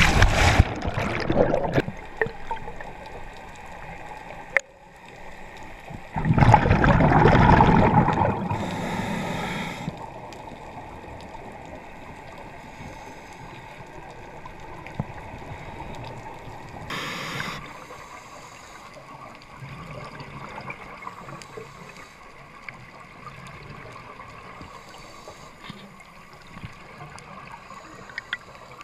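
A scuba diver's entry splash into the sea, then underwater sounds heard through a mask-mounted GoPro: gurgling bursts of exhaled bubbles from the regulator, a long one about six seconds in and a shorter one a little past halfway, over a steady low underwater hiss.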